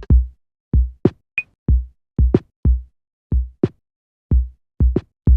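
Lo-fi drum machine kit playing a sparse, dry beat of deep kick thumps and sharper snare-like hits, with a short high blip about a second and a half in.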